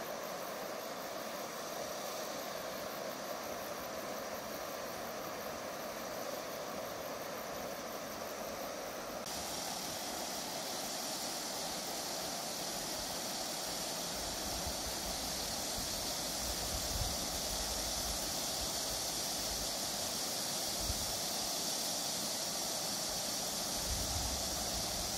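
Steady outdoor ambience: an even hiss with no distinct events. The high part of the hiss changes abruptly and grows louder about nine seconds in, and wind rumbles on the microphone come and go in the second half.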